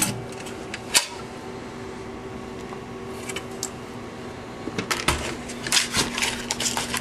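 Clicks and clatter of a Bally S9000 slot machine's ticket printer being unlatched and slid out of its mount: one sharp click about a second in, then a run of rapid clicks and rattles near the end. A steady low hum runs underneath.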